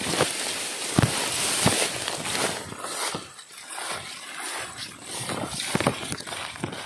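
Grass and fern fronds rustling and brushing close against a handheld phone as someone scrambles up through dense undergrowth, with a few sharp snaps and footfalls.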